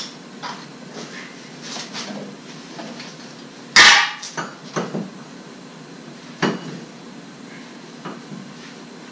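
Metal clinks and clanks of a ball joint press being handled and fitted over a steel wheel hub, with one loud ringing clank about four seconds in and a few lighter knocks after it.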